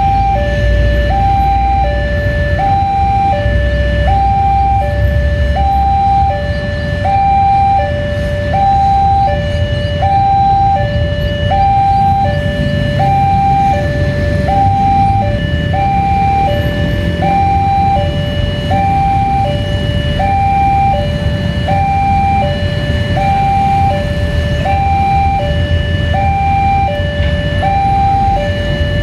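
Railway level-crossing warning alarm sounding continuously: an electronic two-tone signal alternating evenly between a higher and a lower tone, about one high-low cycle every two seconds, over a low rumble. It signals that a train is approaching.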